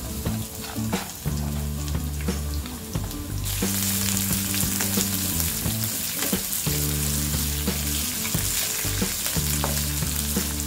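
Chopped onion sizzling as it fries in hot oil with chana dal and sesame seeds in a steel kadai, stirred with a wooden spatula that scrapes the pan now and then. The sizzle grows louder about a third of the way in. Low background music plays underneath.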